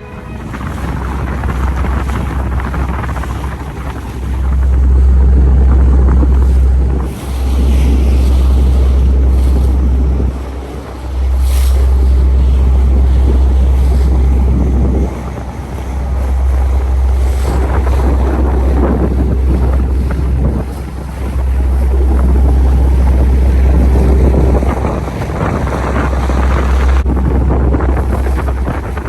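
Heavy wind buffeting the microphone in gusts that swell and drop every few seconds, over the rush of water from a ferry under way.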